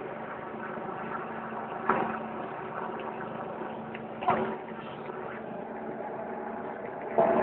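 A steady motor-vehicle engine hum over a background of crowd noise, with three brief louder calls or shouts rising out of it at roughly even intervals.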